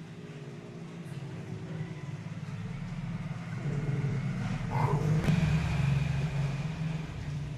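A motor vehicle's engine running close by, growing louder past the middle and easing off near the end.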